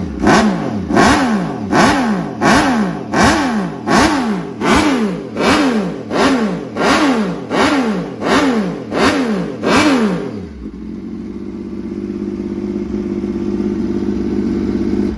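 MV Agusta F3 675 race bike's inline three-cylinder engine, through an Akrapovič race exhaust, loud, blipped on the throttle about twice a second, each rev rising sharply and falling away. About ten seconds in the blipping stops and the engine settles to a steady idle.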